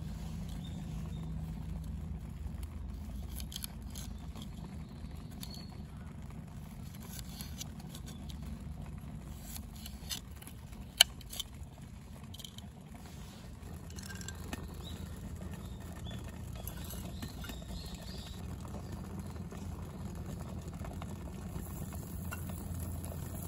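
Small knife clicking and scraping against a thin metal plate as asparagus is cut into pieces, with one sharp click about halfway through, over a steady low rumble. Near the end a faint sizzle starts as a pat of butter goes onto a hot pan.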